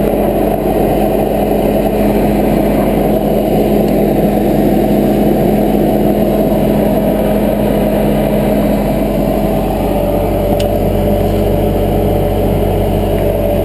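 Bobcat skid steer engine running steadily, with a held tone and a dense low drone; the engine note shifts slightly about ten seconds in.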